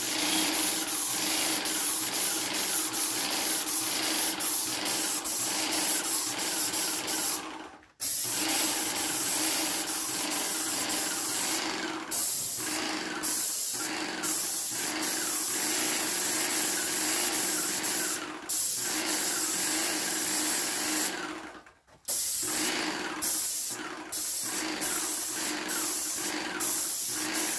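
Airless paint sprayer spraying paint in a steady hiss, cutting out briefly several times as the gun stops, with two short near-silent breaks about 8 and 22 seconds in.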